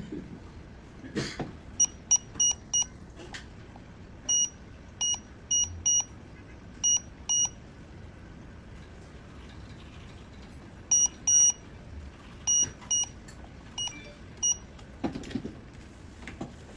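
Electronic beeper of a digital multimeter giving about seventeen short, high-pitched beeps in irregular groups, some held a little longer, among a few light clicks and knocks of handling.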